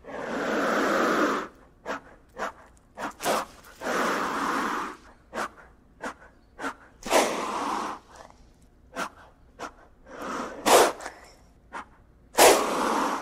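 Gila monster hissing: five long, breathy hisses about three seconds apart, with short sharp puffs and clicks between them.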